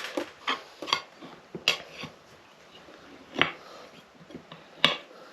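Irregular sharp clicks and knocks, about eight in all, the loudest two near the middle and near the end, from tyre levers and the tyre bead being worked over the rim of a motorcycle wheel.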